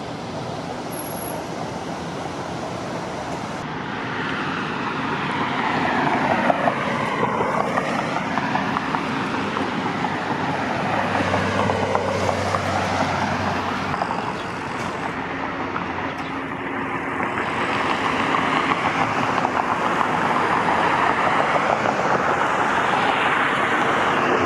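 Road traffic: vehicles passing one after another, tyre and engine noise swelling and fading as each goes by.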